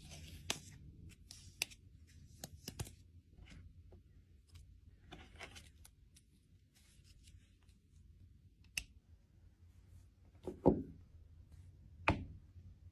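Packaging being handled and opened by hand: rustling and tearing of wrapping with scattered sharp clicks, then two louder knocks near the end.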